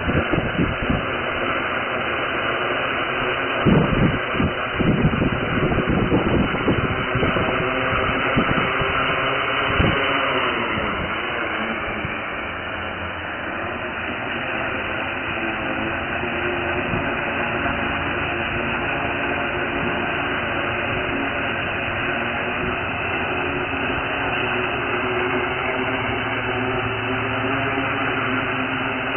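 Hexacopter's six electric motors and propellers running with a steady whirring drone of several held tones. Gusts of low rumble hit the microphone through the first ten seconds. About ten seconds in the pitch shifts, then holds steady.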